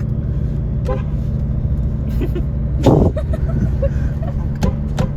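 BMW 335d's twin-turbo diesel straight-six and tyres making a steady low rumble as the car drives along. A few light clicks and knocks sound over it, and a louder short sound comes about three seconds in.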